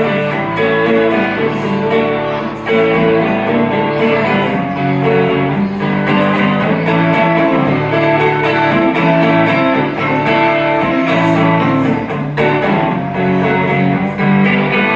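Live band playing an instrumental break without vocals, led by strummed and picked guitar, at a steady level.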